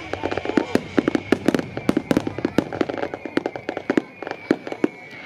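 Aerial fireworks shells bursting in a dense barrage: many sharp bangs and cracks in quick succession, several a second.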